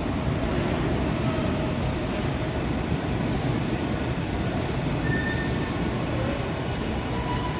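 Seoul Subway Line 7 train pulling into the station along the screen-door platform, a steady rumble of wheels and running gear with a short high-pitched tone about five seconds in.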